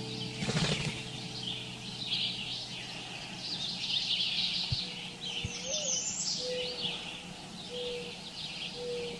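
Many birds chirping and twittering together. From about five seconds in, a lower, drawn-out call repeats: one note with a rise and fall, then three steady notes.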